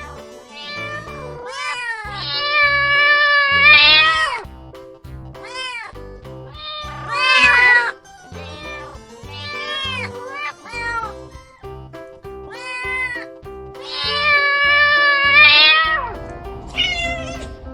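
Cats and kittens meowing again and again: a string of short meows that rise and fall in pitch, with two long drawn-out meows, over background music.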